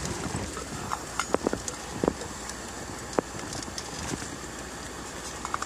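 Handling sounds: about five sharp clicks and knocks of small objects being moved, bunched between one and three seconds in, over a steady low background rush.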